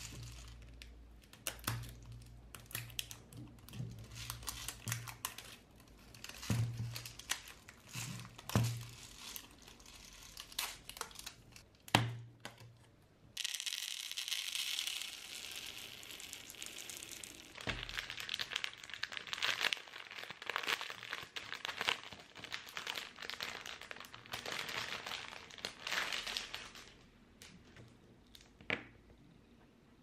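Handling and opening a plastic bottle of scent beads, with crinkling, clicks and knocks. About halfway through, the small beads pour steadily into a plastic bowl with a hiss, followed by more rustling and clattering as the beads are handled.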